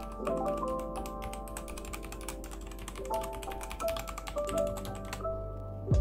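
Royal Kludge RK84 mechanical keyboard being typed on quickly: a dense run of key clicks that stops about five seconds in. Background music plays underneath.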